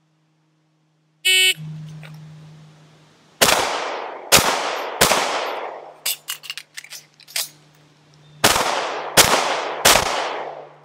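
An electronic shot timer beeps once. Then a CZ 75 9mm pistol fires three shots, each under a second apart. Next comes a quick run of metallic clicks, the mandatory magazine reload, and then three more shots at the same pace.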